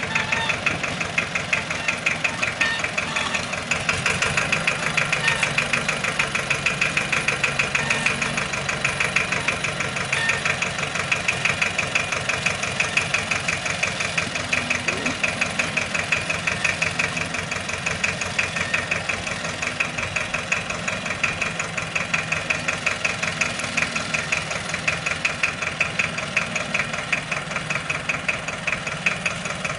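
Diesel engine of a small old Deutz tractor running steadily with an even, rapid beat, driving its cable winch under load as it pulls a hilling plough through the soil.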